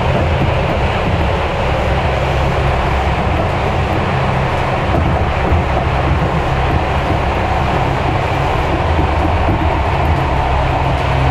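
Tobu Railway electric train running, heard from inside the car: a steady low hum of motors with wheel and track noise.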